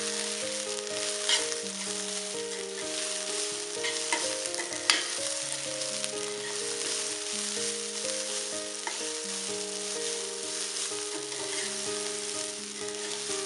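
Rice with sprouted methi frying and sizzling in a pan, stirred with a spatula that knocks against the pan a few times, sharpest about five seconds in. Soft instrumental background music with slowly changing held notes plays underneath.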